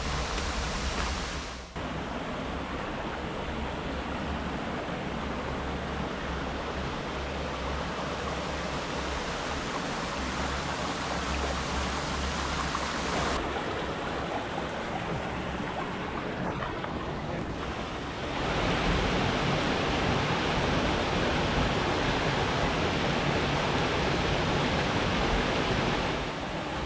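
Rushing water of a rocky creek and its small waterfall, a steady hiss. It changes level abruptly at a few cuts and is loudest over the last third.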